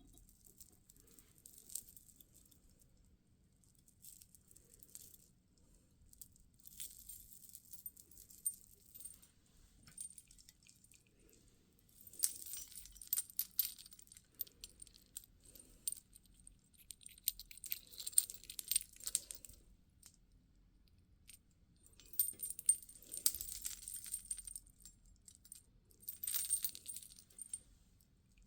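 Small beads clicking and clinking against each other in short bursts of rapid, high-pitched ticks as they are handled for a book tassel.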